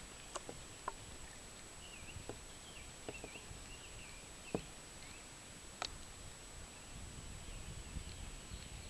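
Faint riverside ambience: distant birds chirping softly, a few sharp clicks, and a steady high-pitched whine.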